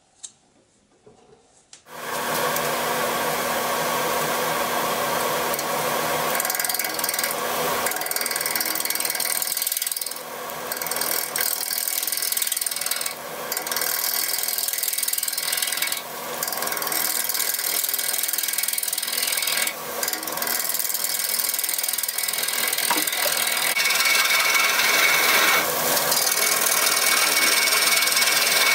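Turning tool cutting a spinning Siberian elm and red epoxy resin blank on a wood lathe: a steady rough shearing of wood over the lathe motor's hum. It starts about two seconds in and breaks off briefly a few times as the tool lifts from the wood.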